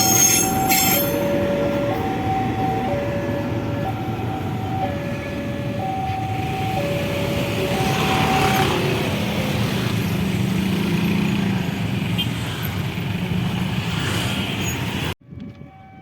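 A train rumbling past a level crossing while the crossing's electronic alarm sounds two alternating tones, high then low, about one a second. The alarm stops about nine seconds in while the train noise carries on, and the sound drops off abruptly near the end.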